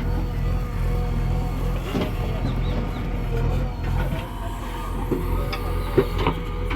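A heavy diesel engine of earth-moving machinery running steadily with a low rumble, with a few short metallic knocks and clanks near the end.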